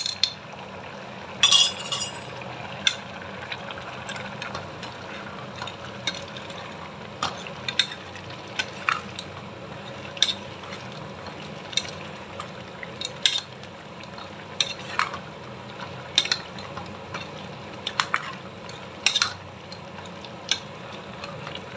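Metal spoon stirring a thick stew of pounded cassava leaves and chicken in an open metal pressure cooker pot, clinking and scraping against the pot's side at irregular intervals, loudest about one and a half seconds in.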